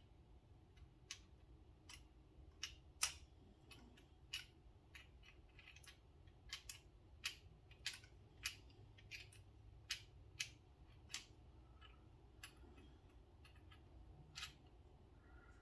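Irregular sharp little clicks and taps of small metal tools and knife parts being handled while the knife's tiny screws are fitted, about one or two a second, the loudest about three seconds in, thinning out near the end.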